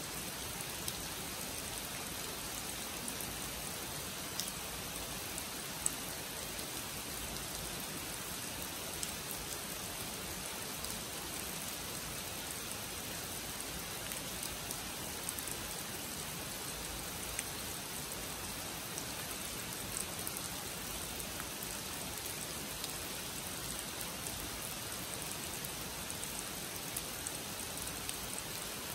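Steady rain falling on a pond and the surrounding foliage, with scattered sharp ticks of individual drops landing close by.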